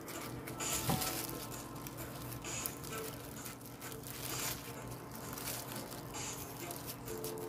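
Kitchen knife cutting slits into the ends of white cucumbers, with crinkling of disposable plastic gloves as the cucumbers are handled, over soft background music.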